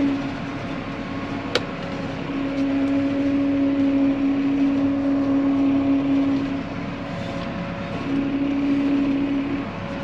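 Massey Ferguson 4355 tractor's diesel engine running steadily at low speed, heard from inside the cab as the tractor creeps forward. Its droning note eases briefly about seven seconds in and returns; a single sharp click sounds about a second and a half in.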